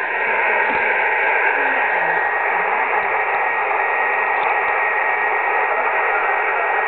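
HF transceiver's speaker hissing with steady static and band noise on the 10-metre band, with a faint steady whistle running through it. This is the noise that made the contact hard to copy.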